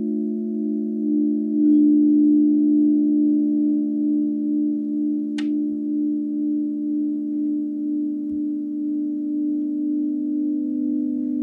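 Crystal singing bowls sounding together in a sustained chord of low steady tones. The chord swells about two seconds in, then wavers in a slow, even pulse as the tones beat against each other. A single light click comes about five seconds in.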